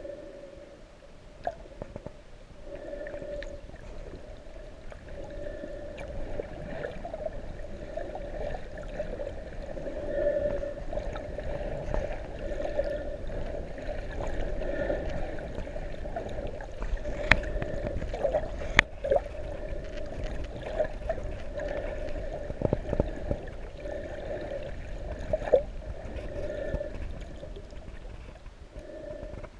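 Underwater ambience: a steady, wavering hum with gurgling water and scattered sharp clicks.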